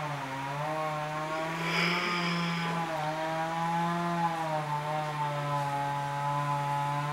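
Small gasoline engine running steadily nearby, its pitch drifting gently up and down.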